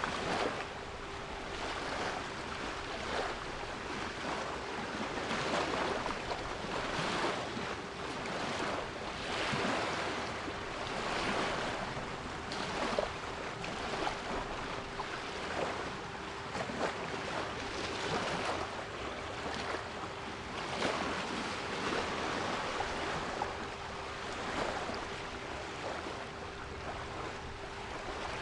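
Sea waves washing and breaking on a shore in a steady rolling rhythm, with a steady 396 Hz pure tone held underneath.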